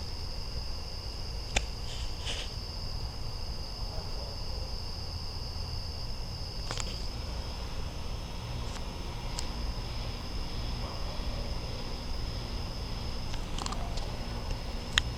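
Night insects trilling in a steady, unbroken high-pitched chorus over a low rumble, with a few faint clicks.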